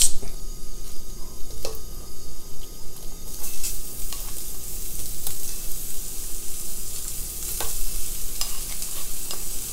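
Sliced onion rings sizzling in hot oil in a stainless pan as they are laid in with metal tongs; the sizzle starts about three seconds in and continues steadily. A few light clicks of the tongs are heard.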